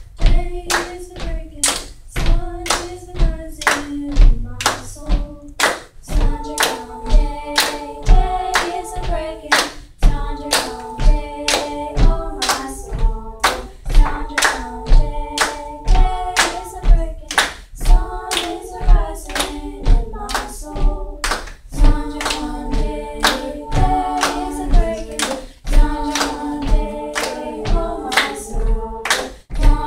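A girls' vocal ensemble singing in parts over a steady beat of their own hand claps.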